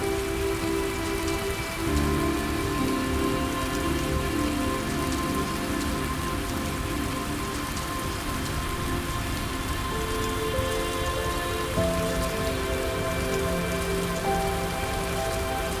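Steady rain falling, with soft sustained music chords that shift every few seconds.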